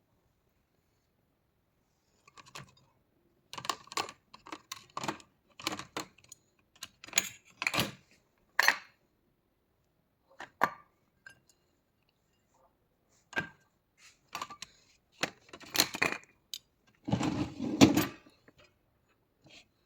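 Dishes and cutlery clattering in a dishwasher's racks: irregular clinks and knocks, with a longer, louder rattle near the end.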